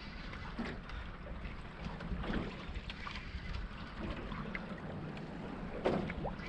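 Wind on the microphone and water against a small fishing boat's hull, a steady low rumble broken by a few short knocks.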